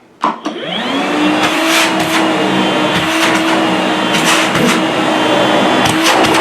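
Makita DVC152LZ 36V cordless wet/dry vacuum switched on at its max setting: a click, then the motor spins up with a rising whine and settles into a steady hum. A few short rushes of hissing air come through as it runs.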